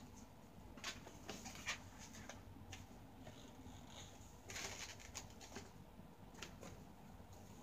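Faint handling sounds of a long latex twisting balloon being stretched and worked by hand: light clicks and rubbing, with a brief louder rustle about four and a half seconds in.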